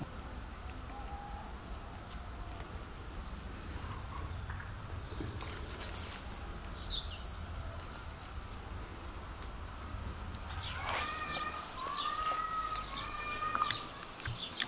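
Birds chirping: scattered short, high calls, then a run of longer, arching calls a little over ten seconds in, over a low steady hum that fades out around the same time.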